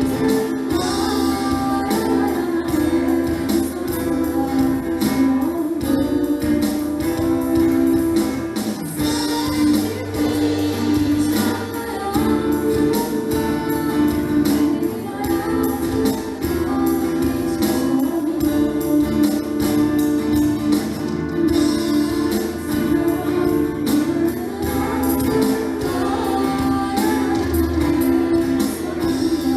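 A school orchestra playing a song, with singing over the instruments.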